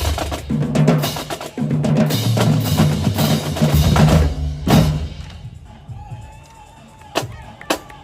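Marching drumline of snares and bass drums playing a dense cadence, which ends on one big unison hit about five seconds in. After that it drops much quieter, with a few single sharp drum strikes near the end.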